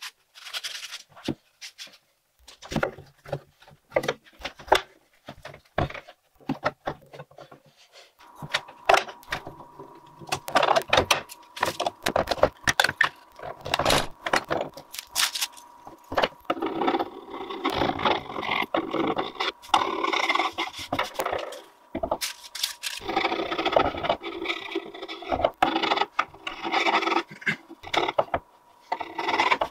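Hand work on a clamped wooden cutting-board glue-up: scattered clicks and knocks of metal pipe clamps and wood being handled, then a dense run of scraping and rubbing as a blade scrapes dried glue off the board.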